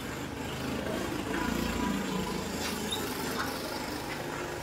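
Street ambience: a steady low rumble of passing road traffic under a haze of background noise, with a few faint ticks.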